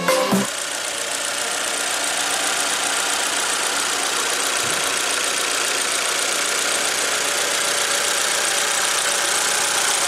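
Chevrolet Tornado pickup's four-cylinder petrol engine idling steadily with the hood open. Music cuts off about half a second in.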